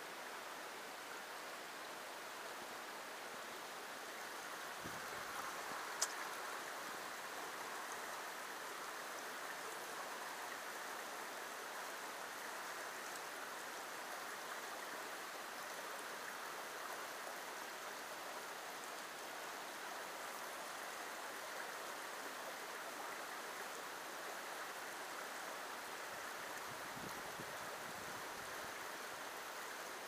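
Shallow creek water running over rocky riffles, a steady rush. A single sharp click about six seconds in.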